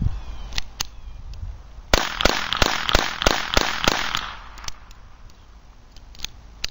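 Beretta 21A .22 LR pistol firing a quick string of about seven shots, roughly three a second, then stopping. A few faint clicks come before and after the string.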